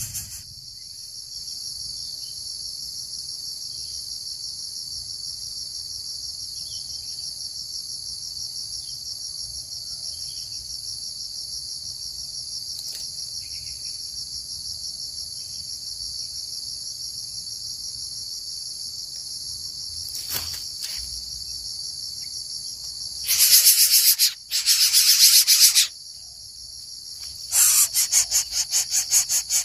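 Steady, high-pitched insect trilling, finely pulsed and unbroken. Near the end it gives way to louder, harsher pulsed bursts, first for a couple of seconds and then again just before the close.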